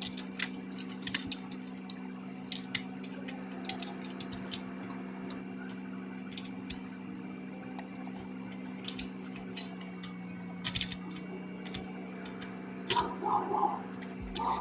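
Steady low electrical hum with scattered faint clicks and ticks, and a few short muffled sounds near the end.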